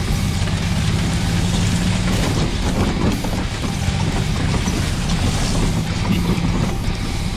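Golf cart driving over a bumpy, overgrown trail: a steady motor hum under rattling and jolting, with branches and leaves brushing along the sides and canopy.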